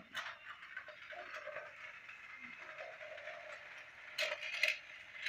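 Battery-powered toy bullet train running on plastic track: a steady motor whir with a light rattle of its wheels. About four seconds in come two sharp plastic clacks as a cat paws at the train.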